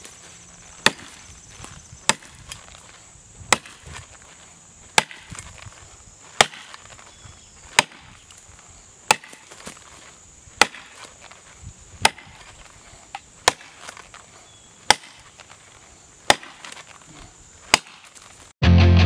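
Double-bit axe chopping into the hard trunk of a honey locust tree, one sharp chop about every second and a half, some thirteen strokes. Loud music cuts in abruptly near the end.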